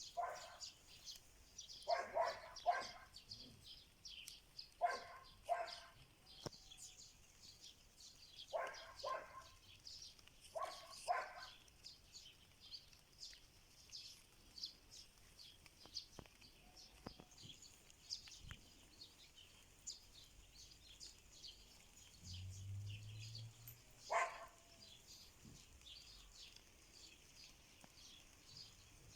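A dog barking, mostly in pairs of short barks, a few times over the first dozen seconds and once more near the end, while birds chirp and sing without a break.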